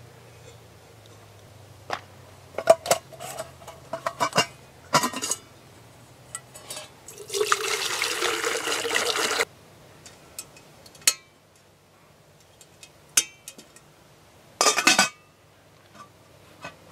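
Water poured into a stainless steel camp pot for about two seconds, a steady splashing fill. Scattered metal clinks and knocks come before it, and a short metallic clatter comes near the end.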